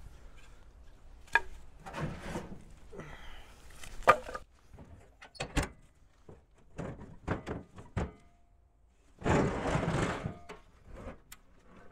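Aluminium diamond-plate truck toolbox being handled in a pickup bed: a series of thunks and knocks, the loudest about four seconds in as the lid is shut, then about a second of scraping near the end as the box slides across the bed.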